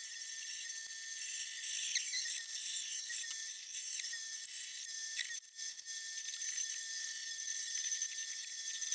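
Bandsaw cutting out a wooden spoon blank: a steady, thin, high-pitched whine that dips briefly about five and a half seconds in.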